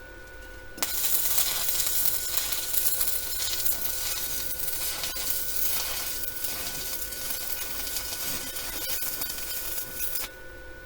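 Stick welding arc burning a 6013 rod at about 65 amps from a small Deko inverter welder on a steel mower deck: a steady crackling hiss that starts abruptly about a second in and stops abruptly near the end as the arc is broken. A faint steady whine from the welder's cooling fan runs underneath.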